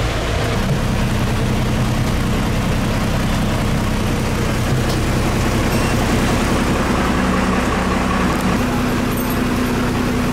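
Road vehicle engine running steadily under a constant rush of road noise. Its low hum shifts pitch about half a second in and again about eight and a half seconds in.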